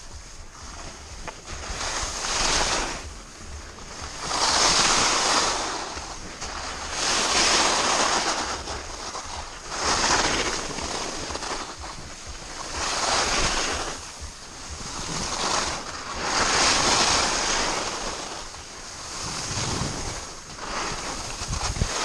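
Skis carving turns down a groomed ski slope: the edges scraping the snow in swells of hiss, one every two to three seconds, with wind rumbling on the microphone.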